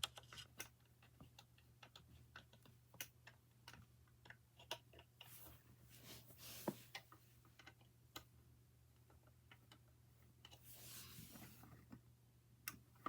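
Faint, scattered small clicks and ticks of a screwdriver tightening the wiring terminal screws on a fire alarm pull station, with soft handling noise about five seconds in and again near the end.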